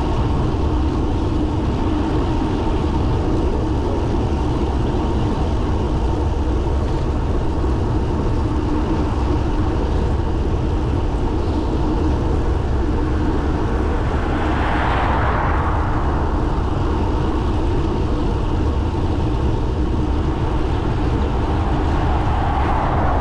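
Steady wind rush over the microphone of a moving bicycle, mixed with road noise. About halfway through, a car passes, its tyre noise swelling and fading over a couple of seconds.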